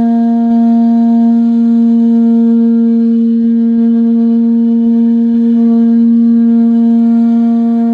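Conch shell trumpet blown in one long, loud, steady note.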